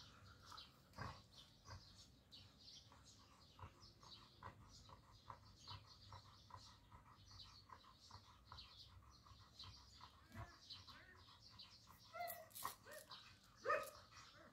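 Faint, rapid clicking throughout. Near the end a German Shorthaired Pointer whimpers in a few short, high whines, the last one the loudest, while the pair is tied during mating.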